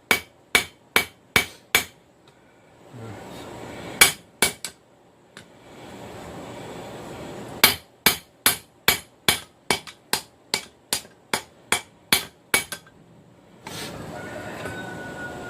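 Hand hammer blows on hot steel against an anvil, drawing out a taper on a railroad rail end: a short run of strikes, two more a few seconds later, then a steady run of about a dozen at two to three a second, with pauses between runs.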